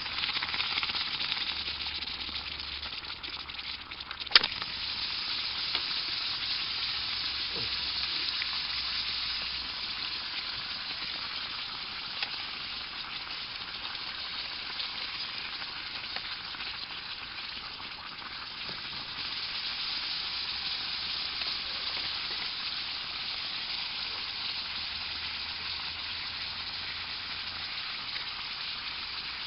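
Water and nettle leaves boiling in a handmade fired-clay pot, a steady bubbling hiss, with one sharp crack about four seconds in.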